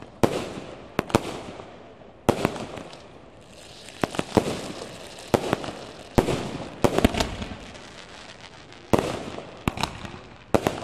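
Aerial fireworks bursting: about a dozen sharp bangs at irregular intervals, some in quick pairs, each fading out over about a second. There is a short lull about three-quarters of the way through before the bangs resume.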